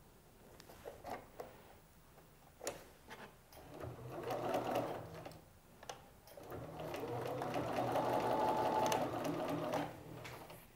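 Bernina sewing machine stitching in two runs, a short one about four seconds in and a longer one of about three seconds starting near the middle, with a few light clicks of fabric handling before them.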